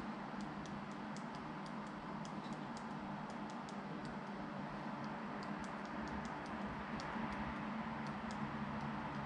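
Thumbs typing on a smartphone's on-screen keyboard: quick, irregular light ticks, about three a second, with a short pause midway, over a steady low hum.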